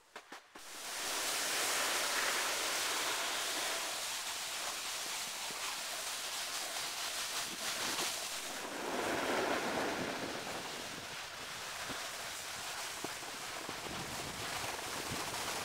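Steady rushing hiss of a snowboard sliding and scraping over snow, swelling for a couple of seconds about two-thirds of the way through.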